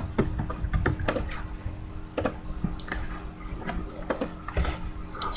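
Scattered light clicks and taps from handling things at a desk, over a low steady hum.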